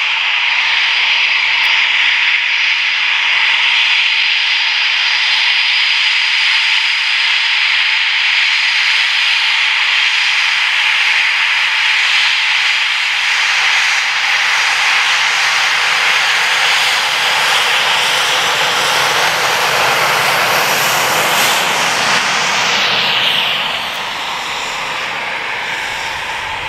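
Eurofighter Typhoon's twin EJ200 jet engines howling loud and steady as the jet passes along the runway. A falling sweep in the whine comes near the end, and then the sound drops off.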